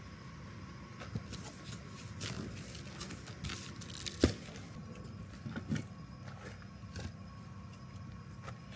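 Scattered rustling, scraping and crunching of materials being handled while a campfire is set up, with one sharp click about four seconds in. A steady faint hum runs underneath.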